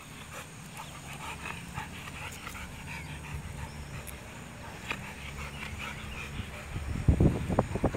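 Two German Shepherd mix dogs play-fighting, with panting and small whimpering sounds. A louder burst of low rumbling comes about seven seconds in.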